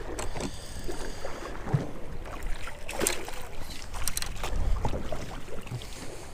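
Light knocks and water sounds around a small fishing boat, with scattered clicks over a low rumble of wind.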